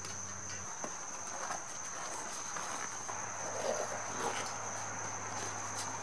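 Faint rustling and small clicks of a rubber inner tube being pushed into a bicycle tyre by hand, over a steady high-pitched whine.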